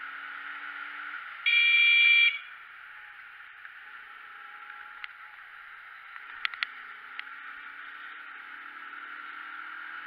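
A vehicle horn blares once for just under a second, about one and a half seconds in, as a warning to a driver who fails to yield. Behind it is a motorcycle riding along, with a low engine note and steady wind rush on the helmet camera.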